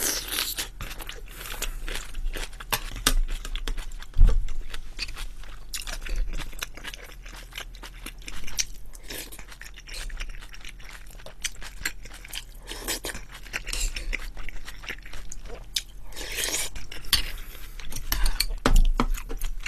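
Close-miked chewing of boiled pork wrapped in kimchi, a steady run of wet smacks and crunches. A single knock sounds about four seconds in.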